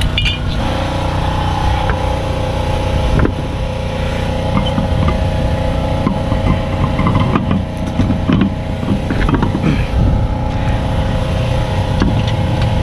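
A motor running steadily, a hum with several constant tones. Scattered knocks and clunks come over it as a steel wheel is fitted onto the hub and its lug nuts are started by hand.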